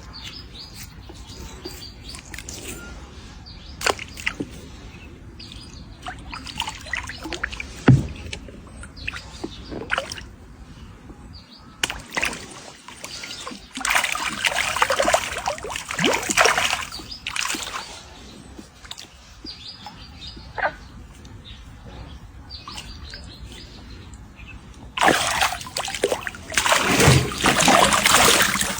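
Water splashing and sloshing in two longer loud spells, with scattered bird chirps between them.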